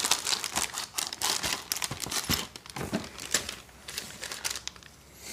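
Packing paper rustling and crinkling as it is pushed aside by hand, then a small plastic bag of chain master links crinkling as it is picked up. Dense irregular crackles, busiest over the first three seconds or so and thinning toward the end.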